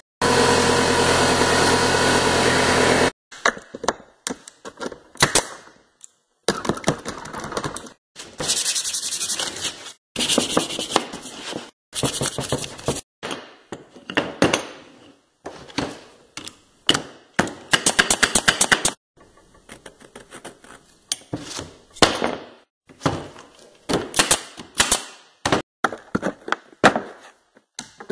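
Woodworking tool sounds on wood. A power tool motor runs for about the first three seconds and stops abruptly. It is followed by a string of short clips of knocks, taps and quick repeated strokes.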